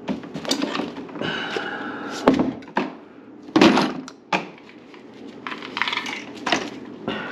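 A run of sharp knocks and thunks from hard objects being handled and set down, loudest about two and a quarter and three and a half seconds in, with short squeaky scraping between the knocks.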